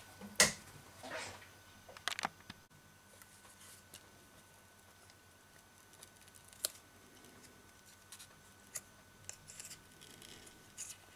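A few faint, scattered clicks and short scrapes as a thin metal pry tool works under the edge of a BQ Aquaris E6 smartphone's display module, its adhesive softened by heating on a separator.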